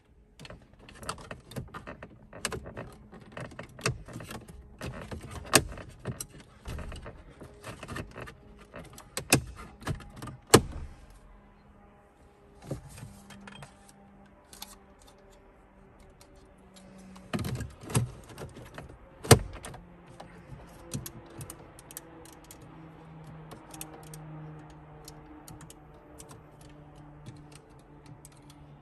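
Plastic clicks, snaps and knocks of a Mercedes CLA's round dashboard air vents being handled and pushed home into their dash sockets. The clicks come in irregular bursts, sharpest through the first half and in a cluster of loud snaps about two-thirds in.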